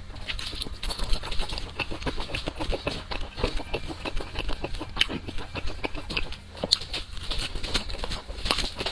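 Close-miked eating sounds: chewing and crunching food, a rapid, irregular run of crisp clicks and wet smacks.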